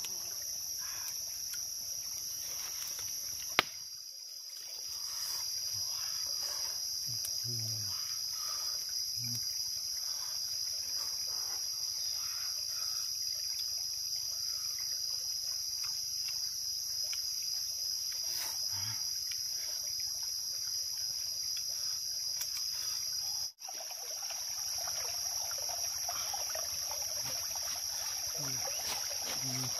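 Steady high-pitched insect chorus of forest insects, droning without a break, with a single sharp click about three and a half seconds in and a momentary dropout about two thirds of the way through.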